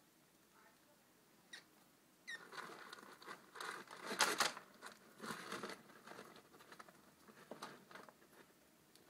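Pet rats scrabbling and rustling through pellet bedding as they push an egg around the cage floor. The rustling starts about two seconds in after a single sharp click, is loudest around the middle, and thins out toward the end.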